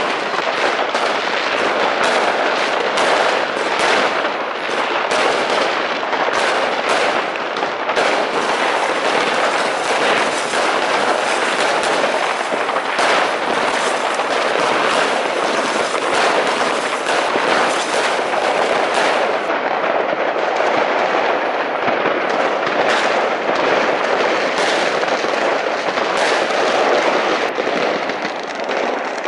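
Fireworks going off in a dense barrage: many aerial shells and bangs overlapping one after another with hardly a gap, through the whole stretch.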